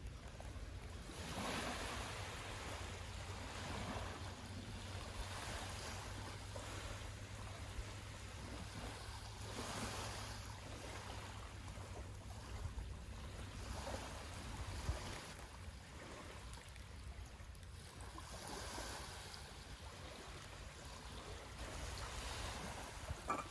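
Small sea waves washing onto a beach, rising and falling in a swell every few seconds, over a low steady rumble.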